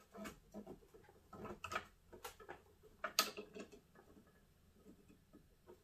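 Light plastic clicks and rattles of wire clips being worked loose from the pump inside a plastic equipment housing, with the sharpest click about three seconds in.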